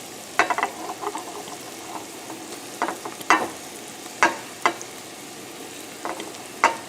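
Raw shrimp sizzling in a hot frying pan of onions and garlic: a steady frying hiss with sharp ticks scattered through it as the shrimp go in one by one.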